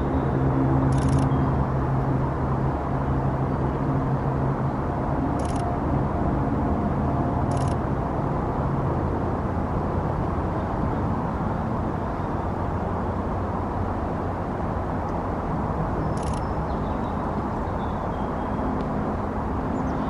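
Steady low rumble of road traffic, with an engine drone that fades out about nine seconds in. Four brief high-pitched sounds come and go over it.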